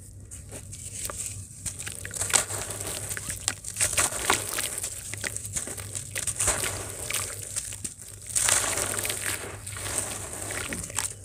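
Soaked chunks of grainy sand crushed and crumbled by hand in a basin of water: a dense gritty crunching and crackling, with a louder burst about eight and a half seconds in as a handful of crumbs falls back into the water.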